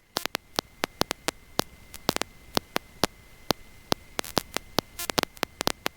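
Electrical static: irregular sharp crackling clicks, several a second, over a faint steady high whine.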